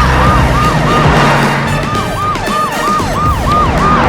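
Emergency-vehicle siren sound effect in rapid falling sweeps, about four a second, with a short break about a second in, over background music.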